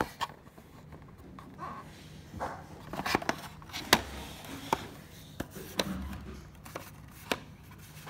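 Hands handling an Ecovacs Deebot robot vacuum's plastic charging dock: irregular sharp plastic clicks and taps with some scraping, most of them in the middle few seconds, the loudest click about four seconds in.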